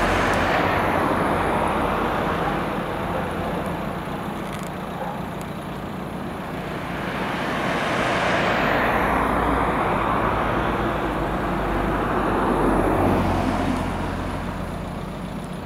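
Road traffic: cars passing close by on the road, their tyre and engine noise swelling and fading several times.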